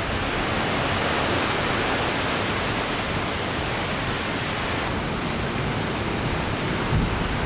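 Strong hurricane wind rushing steadily through the trees as one continuous noise, with a brief low buffet of wind on the microphone near the end.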